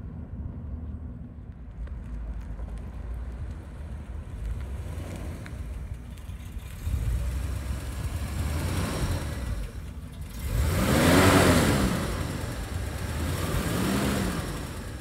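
1957 Cadillac Fleetwood's V8 running as the car drives up, getting louder about halfway through. It is revved twice, each time rising and falling in pitch: a loud rev about two-thirds of the way through and a smaller one near the end.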